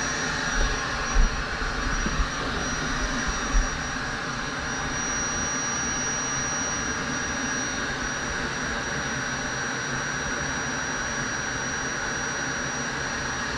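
A power tool's electric motor running steadily with a rushing hiss and a constant high whine. A few short knocks in the first four seconds as the metal clamp on the rail is adjusted.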